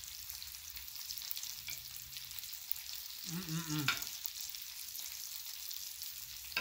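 Food sizzling on a hot Blackstone flat-top griddle: a steady crackling hiss. A man's brief voiced sound breaks in about three and a half seconds in.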